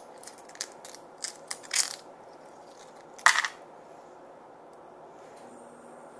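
Butter knife clicking and scraping against a bay scallop shell in a quick run of small strokes for about two seconds as the meat is shucked and the gills pulled off. About three seconds in there is one louder, sharper scrape.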